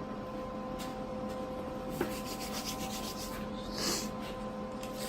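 Rubbing and scraping of tools and steel being handled, with light ticks and a click about two seconds in and a short hiss near the end, over a steady electrical hum.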